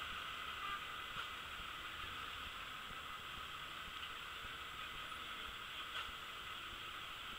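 Faint, steady roar of a Boeing 737-300's CFM56 jet engines as the aircraft climbs away after take-off.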